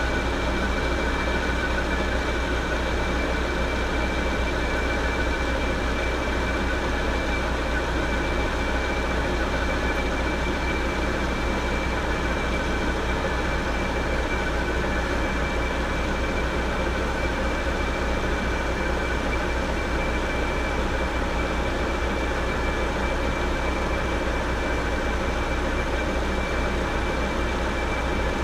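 South Bend 14-1/2 lathe running steadily under feed, taking a turning pass on a workpiece between centers. It gives an even hum with a constant high whine.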